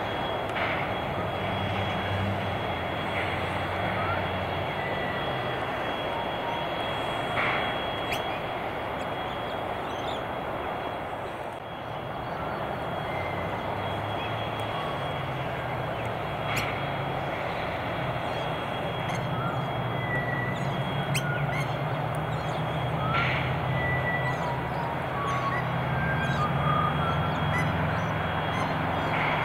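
Steam locomotive standing with a steady hiss and low rumble, a thin steady whine running through it, and short bird chirps now and then.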